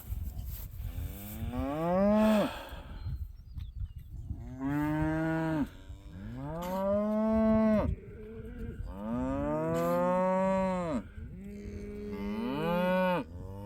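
Shorthorn cow bawling, about five long moos one after another, each rising in pitch and then falling away. She is calling from behind a gate, kept apart from the herd being moved to the other pasture.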